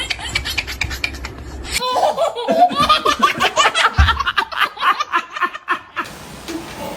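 Children laughing in rapid, high-pitched fits of giggles, with a brief low thump about four seconds in. The laughter dies down near the end.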